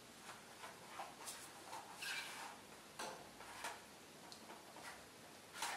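Faint, scattered clicks, taps and rustles of hands feeling over a plastic PlayStation 2 console covered in plastic film, with a brief rustle about two seconds in and a sharper click near the end.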